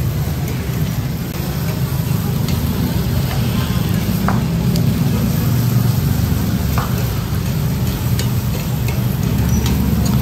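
Pork sisig sizzling on a hot iron sizzling plate over a gas burner while a metal spoon stirs and scrapes through it, with a few sharp clinks of the spoon against the plate. A steady low rumble runs underneath.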